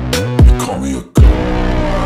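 Electronic dubstep-style backing music with deep, downward-sliding bass hits under a held synth. The track drops out for an instant about a second in, then comes back in.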